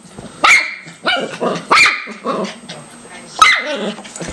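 A small dog barks in a string of about five sharp barks, roughly one a second, scolding a puppy that has climbed onto the sofa.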